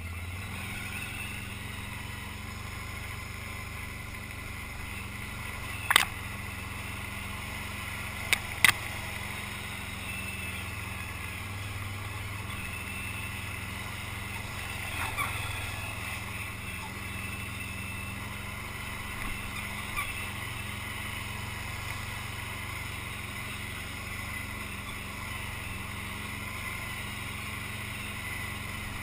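Off-road vehicle engine running steadily as it drives along a dirt trail, heard from on board. A few sharp knocks stand out, one about six seconds in and two close together a couple of seconds later.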